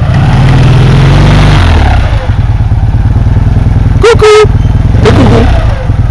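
Citroën 2CV 4x4's engine working under load off-road: revving high, then dropping in pitch after about a second and a half and running on unevenly. About four seconds in, a short loud shout cuts through.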